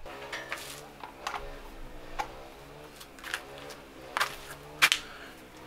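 Light clicks and knocks of things being handled in a workshop: about six scattered sharp taps, the loudest pair shortly after four seconds and just before five seconds.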